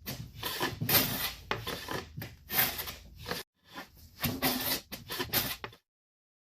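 Rapid rasping strokes of a hand tool working wood, about two a second. They break off abruptly twice, the second time for good.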